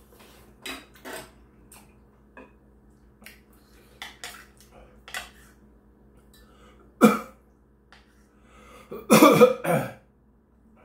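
Metal spoon clicking against a ceramic bowl with small eating sounds, then loud coughing about seven seconds in and again, longer, about nine seconds in.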